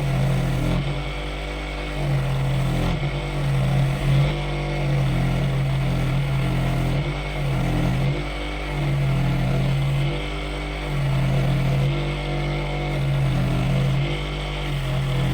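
Electric power tool motor running steadily under load, its low hum swelling and dropping back about once a second.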